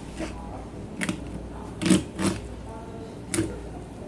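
A knife working through a rockfish fillet to cut away the rib bones, giving about four short sharp clicks and knocks.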